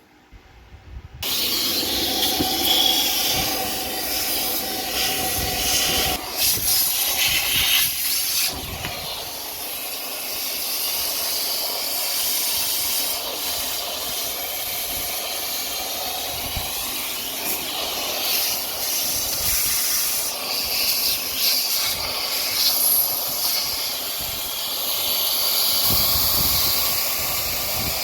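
Central vacuum hose sucking out lint inside a clothes dryer: a loud, steady hissing rush that starts about a second in and rises and falls in level as it goes.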